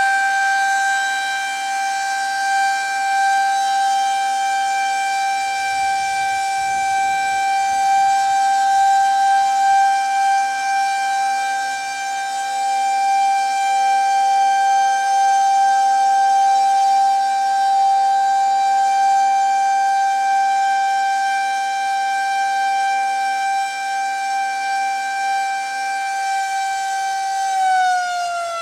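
Federal Signal 2001-130 rotating electromechanical outdoor warning siren holding the steady tone of its Alert signal, swelling and fading in loudness as the horn turns. Near the end the pitch starts to fall as the rotor winds down at the close of the signal.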